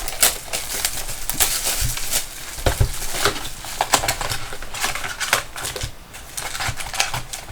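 Trading card packs being handled on a table: irregular crinkling of foil wrappers and small clicks and taps of cards being sorted.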